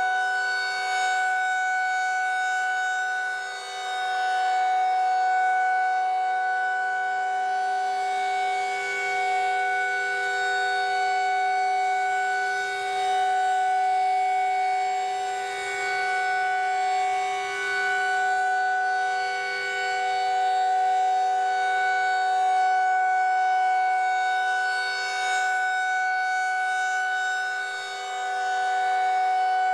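Federal Signal 2001-SRN electronic outdoor warning siren sounding its steady Alert tone. The pitch holds level, while the loudness swells and dips every several seconds as the rotating speaker array sweeps round.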